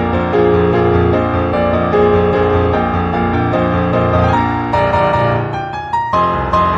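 Background music with piano and a steady beat; it drops out briefly about six seconds in, then comes back.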